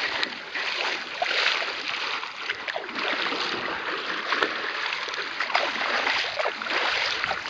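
River water splashing and sloshing as an elephant is washed in the river, a continuous busy wash of splashes with many short slaps of water.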